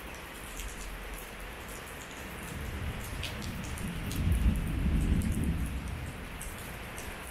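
Rain pattering steadily, with scattered drops ticking, and a low rumble that swells for a few seconds around the middle.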